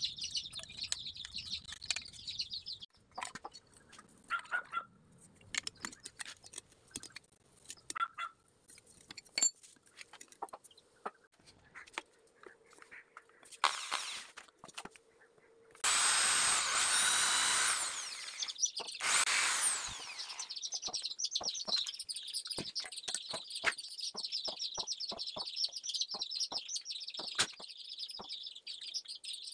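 Corded electric hand drill spinning up and running for about two seconds, then briefly once more, drilling a small hole through a copper plate clamped in a bench vise. Birds chirp steadily before and after, with scattered clicks of metal parts being handled.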